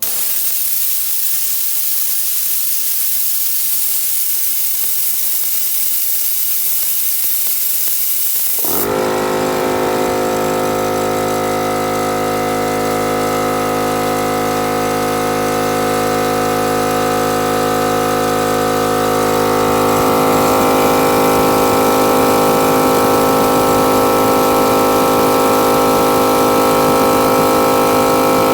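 Anest Iwata HX4004 air compressor: a strong hiss of compressed air venting for about nine seconds, then it cuts off as the compressor motor starts and runs steadily with a whine, getting a little louder about two thirds of the way through.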